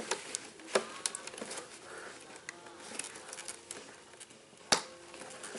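A plastic wiring connector is pushed into the plastic top flange of a new fuel pump assembly. There are a few light plastic clicks and handling noises, then one sharper click about three-quarters of the way through as the connector snaps into place.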